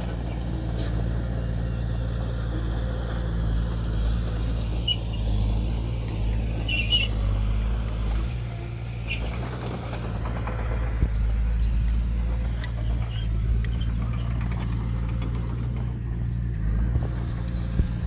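Komatsu D20P bulldozer's diesel engine running steadily under load, a constant low drone, with a few short metallic squeaks and clicks from the machine.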